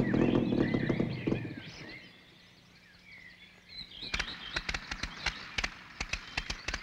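A model airplane's small engine runs with rapid pulses and fades away over the first two seconds, leaving birds chirping. About four seconds in, a run of irregular sharp clicks starts.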